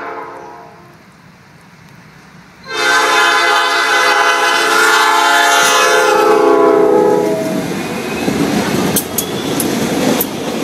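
Norfolk Southern diesel freight locomotive's air horn: a previous blast fades out at the start, then one long, loud blast begins about three seconds in and drops slightly in pitch as the locomotive passes. After it, the steady rumble of the freight train's locomotives and boxcars rolling by, with a few sharp clicks near the end.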